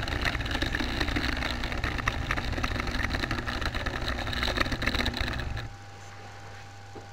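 OO gauge model train running with an onboard camera: a motor whirr and a rapid clicking rattle of wheels on track. It stops suddenly about five and a half seconds in as the train halts, leaving a faint steady hum.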